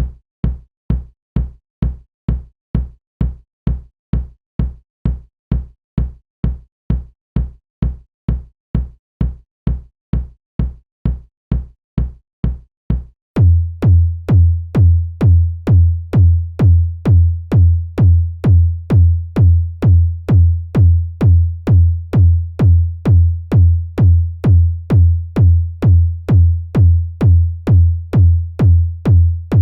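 Electronic kick drum samples repeated in a steady beat, about two hits a second. Up to about 13 seconds in it is a short, low thud; then a different kick takes over, longer and boomier with a sharp click on top.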